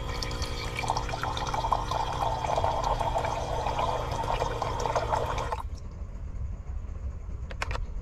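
Electric bottled-water dispenser pump running with a steady hum while water pours from its spout into an enamel mug. The pump and the pouring cut off together about five and a half seconds in, and a couple of light clicks follow near the end.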